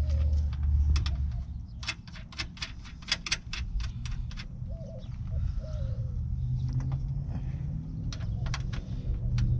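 Rapid clicks and rattles as parts are handled in the headlight opening of a 2000 Toyota 4Runner, a quick run of about five a second that comes in bursts, with a few more near the end. A dove coos twice in the background around the middle.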